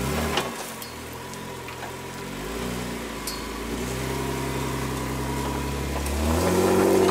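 Jeep Wrangler JK's engine working off-road, its revs dipping and rising, holding steady, then climbing to the loudest point near the end. A few sharp knocks come through over it.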